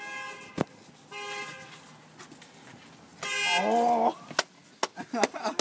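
A horn tooting three times, each a short steady blast, the third one the loudest.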